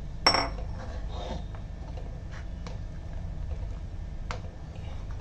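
Steel spoon knocking against a steel pot while stirring milk and rice for kheer: one sharp, ringing clink about a quarter second in, then a few faint taps. A steady low hum runs underneath.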